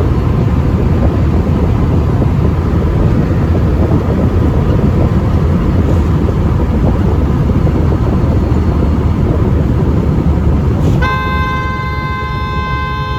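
Steady road and wind rumble of a moving vehicle, then a vehicle horn sounding one long steady blast of about two seconds near the end.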